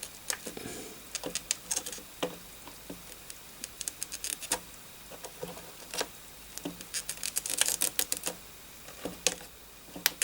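Irregular light clicks and taps of a small hand tool working at a plastic 72-pin connector and its pins on a circuit board, with a quick run of scrapes and clicks about three-quarters of the way through.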